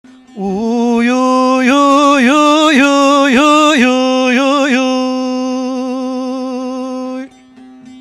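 A man singing one long held note in Turkish folk style, the pitch dipping in quick turns again and again, then held steady before it cuts off near the end.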